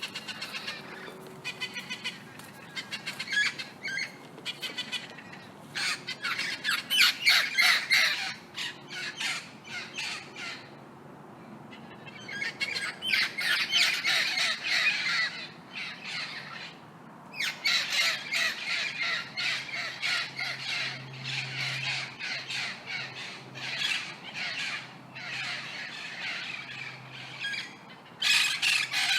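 Several parrots squawking in rapid, overlapping bursts, broken by a couple of brief lulls.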